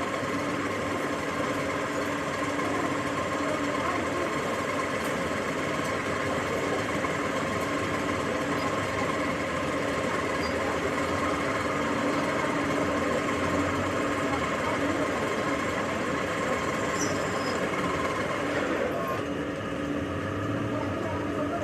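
A workshop machine running steadily with an even mechanical hum and whine. The tone shifts about nineteen seconds in.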